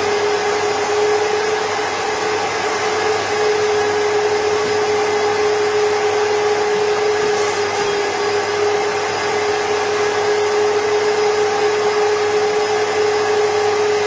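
Twin-fan vacuum motor of a Cleanvac ISV 2800 S steam upholstery cleaning machine running steadily, a constant whine over an even rushing of air.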